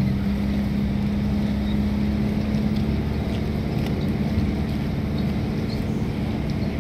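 The motor of a canopied wooden passenger boat running steadily, a low hum with one held note that lifts slightly at the start, then stays even.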